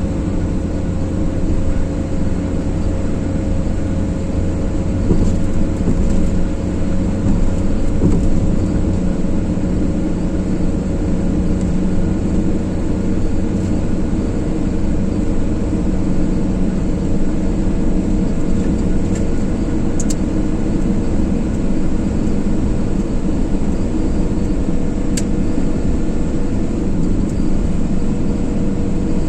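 Car driving at a steady speed on a motorway: continuous engine hum and tyre-on-road noise, with a couple of faint ticks late on.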